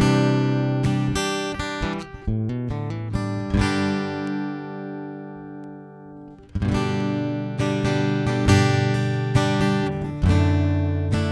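Tagima Café CF-1000 acoustic-electric guitar, with solid spruce top and half-worn strings, played through its pickup: picked notes and strummed chords. About four seconds in a chord is left ringing and fades away, and then the strumming starts again near seven seconds.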